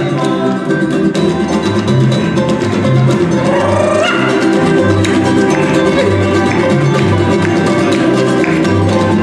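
Live Veracruz son jarocho music from a string ensemble: fast strummed guitars over a pulsing plucked bass line.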